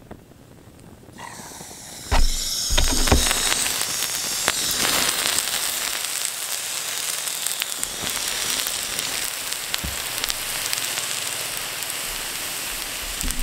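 Burning model cars being doused with water: two heavy splashes about two and three seconds in, then a steady loud hissing and sizzling as the flames are put out.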